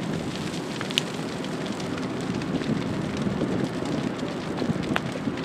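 Burning brush crackling, with scattered small pops and two sharper snaps, one about a second in and one near the end, over a steady low rumble.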